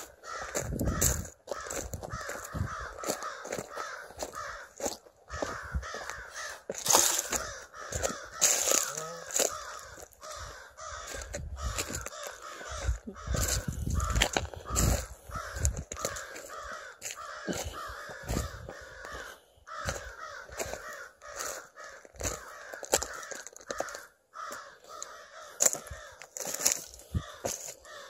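Footsteps crunching over loose shale and dry fallen branches, with irregular louder cracks and knocks, while birds call over and over in the background.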